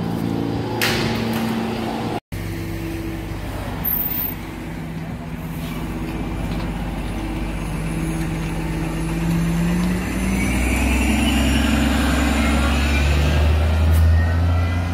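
A subway train runs at the platform for about two seconds, then the sound cuts to a city bus. The bus's drive gives a low drone and a rising whine that grow louder as it pulls away, loudest near the end.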